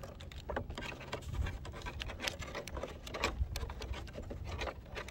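Irregular light clicks and rustles from gloved hands handling a 3D-printed plastic RC jet, over a low rumble of wind on the microphone.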